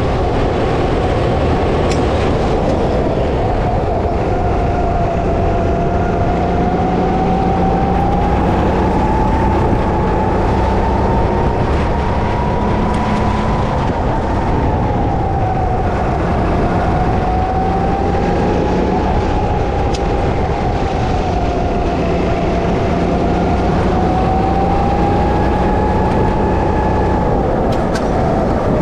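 Go-kart engine running at racing speed, its whine rising and falling slowly several times as the kart accelerates and slows for the corners, over a constant low rumble.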